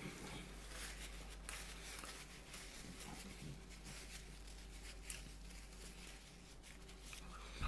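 Faint rustling and small clicks of a paper napkin being handled, over a steady low hum.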